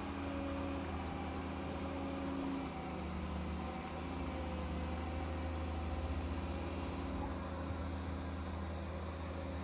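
An engine running steadily, a low hum with a few faint steady tones above it and no change in speed.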